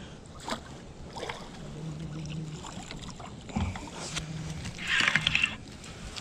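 Smallmouth bass splashing at the surface as it is scooped into a landing net beside the boat, loudest in a short splash about five seconds in, with light knocks before it.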